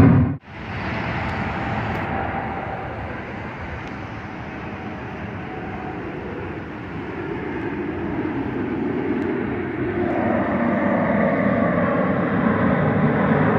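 Jet airliner flying overhead: a steady rushing engine rumble that grows louder over the last several seconds as the plane approaches.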